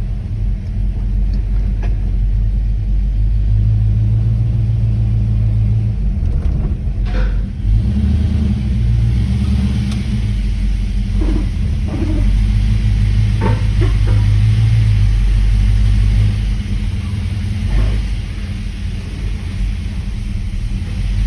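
1979 Camaro Z28's V8 engine running with a steady low rumble, with a handful of short squeaks or chirps over it.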